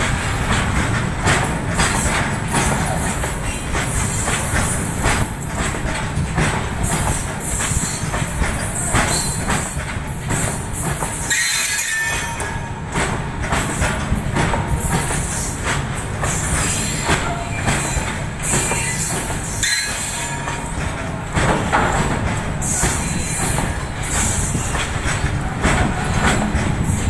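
A rake of covered goods wagons rolling past close by, the wheels clattering over the rail joints in a fast, uneven rhythm. High-pitched wheel squeal comes and goes in patches.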